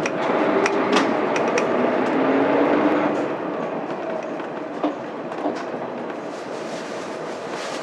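Mitsubishi Fuso Aero Star bus running, heard from the cabin: its 6M70 straight-six diesel pulls with a rising engine note for about three seconds, then eases off and the sound drops back to a steadier road rumble. Several sharp rattling clicks come near the start.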